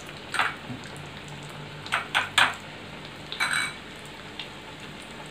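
Dishes and a fork clinking: about five short clatters, three in quick succession about two seconds in, over the steady faint sizzle of chicken nuggets deep-frying in oil.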